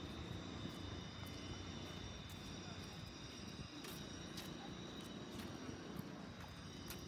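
Steady low rumble of city street ambience, with faint voices of people around and a few faint clicks.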